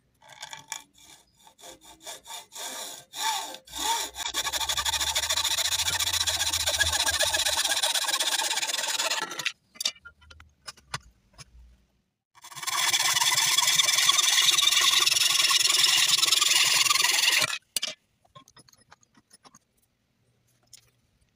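Hacksaw cutting through the steel tang of a knife blade clamped in a vise. A few starting strokes lead into about five seconds of steady sawing, then a pause, then another five seconds of sawing. Light handling clicks follow near the end.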